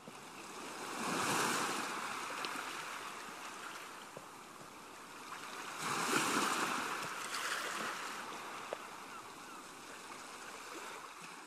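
Ocean waves surging and washing on a shore, two big swells about five seconds apart, each easing off slowly.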